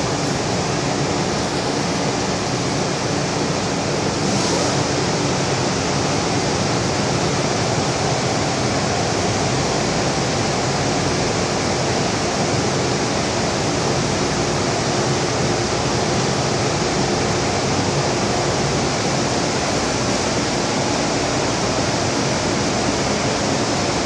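Hong Kong MTR Island Line M-Train heard from inside the carriage while running through a tunnel: a steady roar of wheels on rail with a faint hum underneath.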